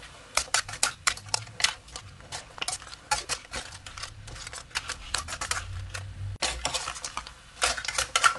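Metal spatula scraping and clanking against an aluminium wok while stir-frying crab, in quick irregular knocks and scrapes.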